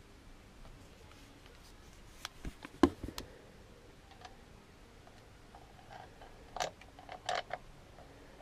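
Hand tools clicking and clinking against metal while bolts are refitted into a motorcycle engine side cover. The clicks come in two short clusters, a little under three seconds in and again around seven seconds in.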